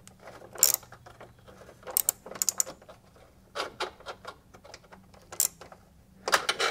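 Ratchet with a 10 mm socket on an extension clicking in short bursts of back-strokes, about five bursts a second or so apart, as a bumper bolt is turned.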